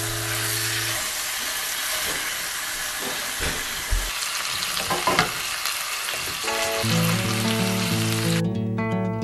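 Chicken breasts sizzling as they brown in oil in a stainless steel skillet, with a few clicks of tongs against the pan. Guitar music comes in about two-thirds of the way through, and the sizzling cuts off suddenly near the end.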